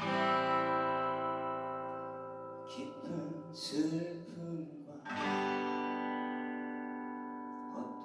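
Acoustic guitar chord strummed and left to ring out, with a man's sung phrase in the gap. A second chord is strummed about five seconds in and also rings and fades.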